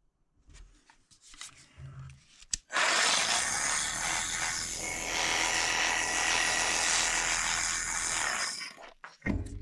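A 12-volt Parkside PSTKA 12 A1 cordless jigsaw cutting for about six seconds. It starts with a click about two and a half seconds in and stops suddenly near the end. A few faint handling clicks come before it.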